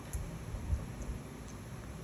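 Baby macaque chewing soft food, with faint wet smacking clicks over a steady low hiss and soft low thumps.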